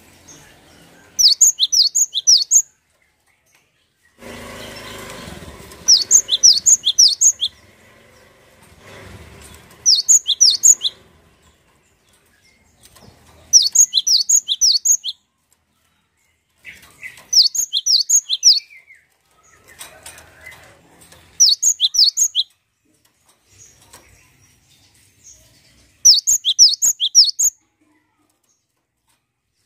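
Cinereous tit singing: seven short phrases of rapid, high, sharp notes, each phrase about one and a half seconds long, separated by pauses of a few seconds.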